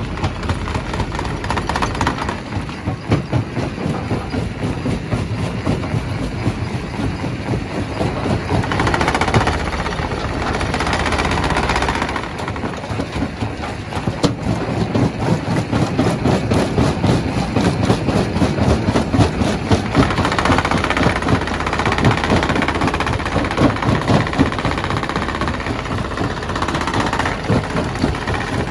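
Primary rock crusher running and breaking stone: continuous heavy mechanical noise with dense rattling and knocking of rock. It grows louder for a few seconds about nine seconds in and again from about twenty seconds in.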